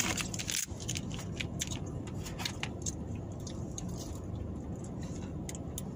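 Eating sounds: scattered small clicks and soft rustles as fried chicken is eaten from a paper box, over a steady low rumble in the car's cabin.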